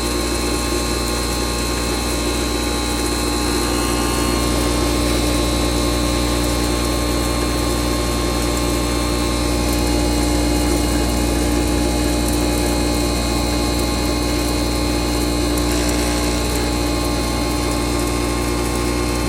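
Stoneless double-chamber atta chakki flour mill running steadily: a constant motor hum with a whine of several steady tones over a grinding rush.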